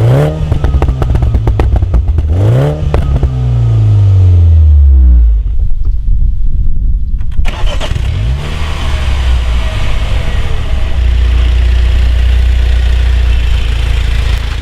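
MINI John Cooper Works F56's turbocharged four-cylinder through a Maxi-Tuner flap exhaust, revving up twice and then falling in pitch as it comes off the throttle. On the overrun the exhaust crackles and pops for a couple of seconds. It then pulls away again and settles into a steady drone.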